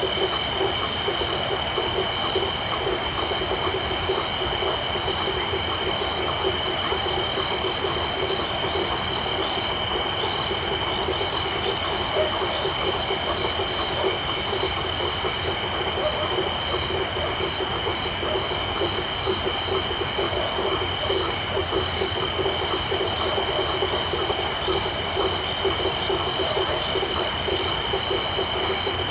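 Tropical night chorus of crickets and frogs: a steady high-pitched insect trill over dense, rapid overlapping frog calls, continuous and even.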